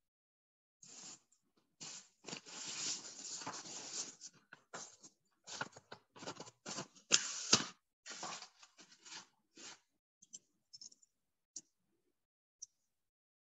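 Paper being handled close to the microphone: irregular rustling and crinkling bursts, loudest a little past the middle, then a few faint ticks near the end.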